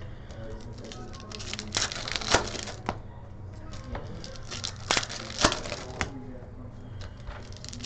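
Trading-card pack wrappers crinkling and being torn open, in a run of sharp, irregular crackles.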